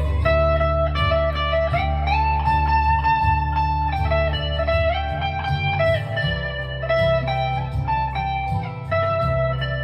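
Chapman ML1 Modern Standard electric guitar, neck pickup coil-split to single coil, played through an overdrive pedal: sustained single-note lead lines that slide and bend between notes.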